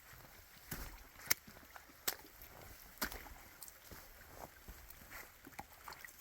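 Footsteps on a wet trail: a string of sharp knocks and crunches at walking pace, the loudest about a second and a half in, over a faint steady hiss.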